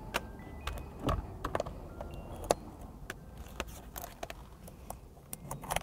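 Scattered sharp metallic clicks and small clinks, a few with a brief ring, as a Corvette C7 steering wheel and its loosened centre bolt are worked off the steering column by hand.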